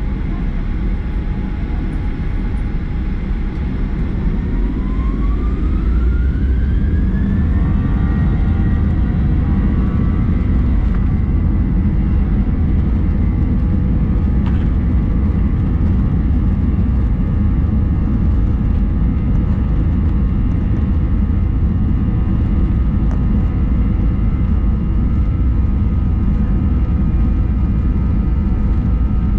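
Boeing 737-800's CFM56 jet engines heard from inside the cabin: a whine rises in pitch about five seconds in, then holds steady over a loud low rumble as the engines spool up to takeoff thrust.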